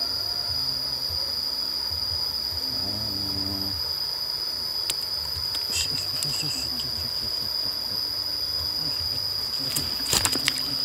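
Insects keep up a steady, unbroken high-pitched trill. A few sharp clicks come near the end.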